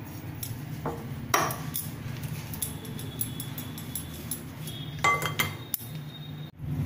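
Gram flour being sifted: a metal spoon scraping in a wire-mesh sieve and the sieve knocking against a glass bowl, giving scattered clinks, with a cluster of them about five seconds in. A steady low hum runs underneath.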